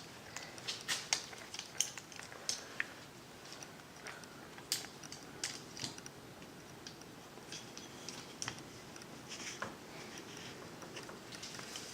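Faint, scattered light clicks and taps of small hard objects being handled, irregular and a second or so apart.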